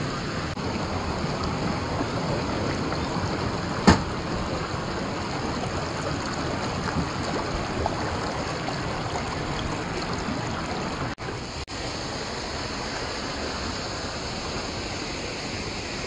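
Mountain creek water rushing steadily over rock, with one sharp click about four seconds in. The sound cuts out briefly twice near the middle.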